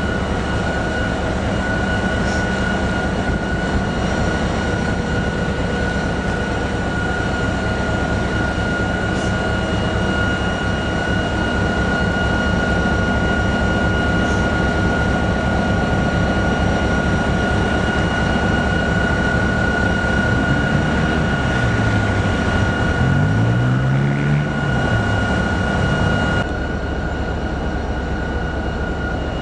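Locomotive engine running steadily with a constant high whine over a low rumble. About three-quarters of the way through its pitch dips and rises, and near the end the sound drops slightly.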